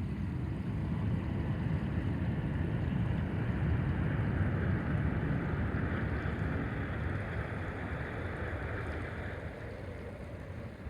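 River water rushing, with wind buffeting the microphone in a low rumble that swells and eases off toward the end.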